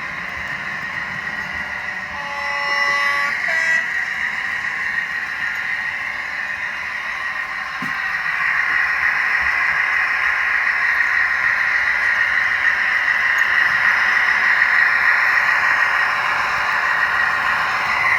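Hornby Class 56 model locomotive's DCC sound decoder playing diesel engine sound through the model's small onboard speaker as it hauls its train. A horn blast sounds about two seconds in, and the engine sound gets louder from about eight seconds.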